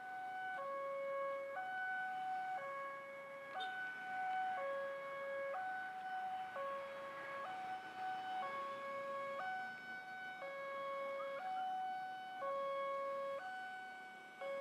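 Railway level-crossing warning alarm sounding while the barrier is down: an electronic two-tone signal alternating between a low and a high note about once a second, warning road users that a train is coming.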